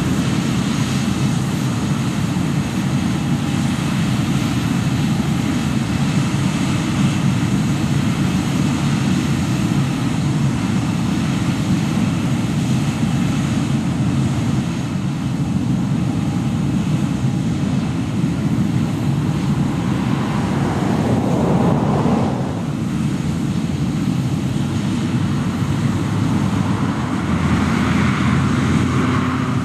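Boeing 737-800's CFM56-7B jet engines running at idle, a steady low rumble.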